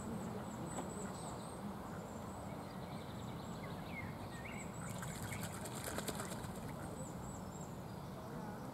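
Outdoor pond-side ambience: small birds chirping over a steady low background rumble, with a quick flutter of wingbeats lasting about two seconds, starting about five seconds in.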